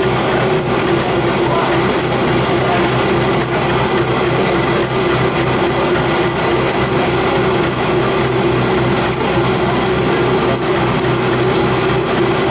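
Water-turbine-powered grist mill running: the machinery and stones give a loud, steady hum with no change in speed, and faint high squeaks come and go over it.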